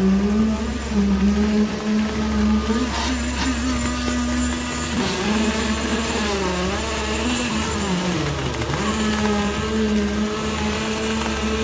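Concrete pump truck's engine running steadily under load while concrete is pumped through the end hose. Its pitch sags briefly twice, about six and a half and eight and a half seconds in, then recovers.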